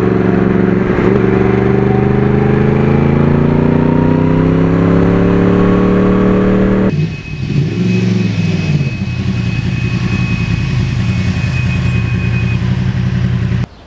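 Suzuki B-King's 1340 cc inline-four held at high revs in a burnout, its pitch climbing slowly for about seven seconds as the rear tyre spins. It then drops abruptly to a lower, steadier engine note with a faint high whine, and the sound cuts off sharply near the end.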